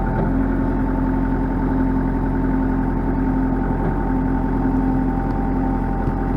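Engine of a wheeled loader tractor running steadily at a constant speed, waiting to lift a heavy stump.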